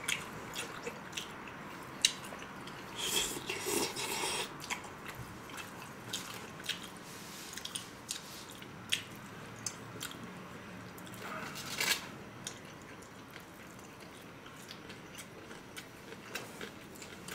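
Two people eating: chewing and mouth noises, with scattered light clicks of chopsticks against plates and bowls. There are a few louder, noisier stretches about three seconds in and again about twelve seconds in.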